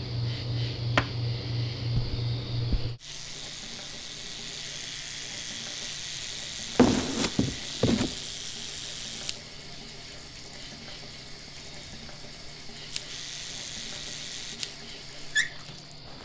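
A low hum pulsing about three times a second stops abruptly about three seconds in. A bathroom tap then runs into the sink as a steady hiss, with a few brief louder noises about halfway through and the flow easing soon after.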